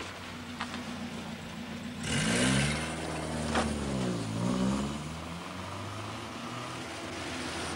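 A car engine over a steady hiss of rain. About two seconds in it grows louder, its note dropping and then climbing again, then it fades back under the rain.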